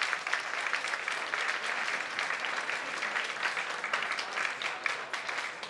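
Audience applauding: many hands clapping in a dense patter that thins out and fades near the end.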